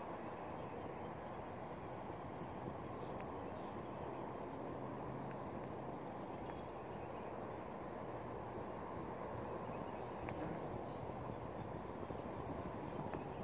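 Small bird chirping high and short, about once a second, several calls dropping in pitch, over a steady low background rush with a couple of faint clicks.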